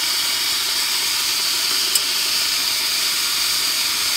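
Steam hissing steadily out of a steam radiator's open air-vent tapping while the boiler is under pressure; the supply valve is not yet turned fully shut. A short click about two seconds in.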